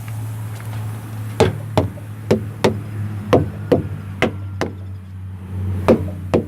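Truck tyres being knocked on one after another to check their inflation by ear: sharp knocks, mostly in pairs, about eight in a row, then a pause and two more near the end. A steady low engine hum runs underneath.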